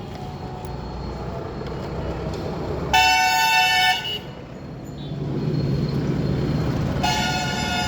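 A vehicle horn sounds twice, two notes at once. The first blast lasts about a second, about three seconds in, and the second starts about seven seconds in. A vehicle engine runs steadily underneath, getting louder from about five seconds in.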